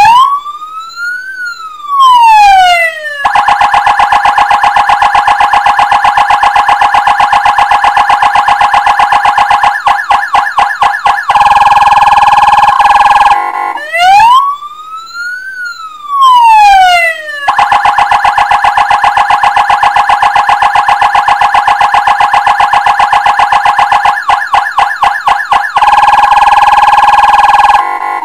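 ME-S100 100-watt electronic siren cycling through its tones. Each cycle is a slow wail that rises and falls once, then several seconds of rapid warbling pulses, then a steadier buzzing tone. The cycle starts again about halfway through.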